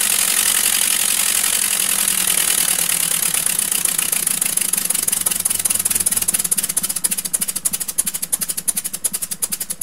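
Two-cylinder double-acting oscillating (wobbler) model engine running fast on compressed air, its exhaust puffs blurring into a continuous hiss. From about six seconds in the air pressure is turned down and the engine slows, the puffs separating into a rapid, distinct chuffing beat.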